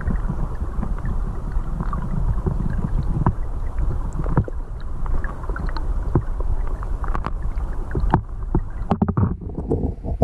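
Stream current heard underwater: a steady low rushing rumble with scattered sharp clicks and ticks through it.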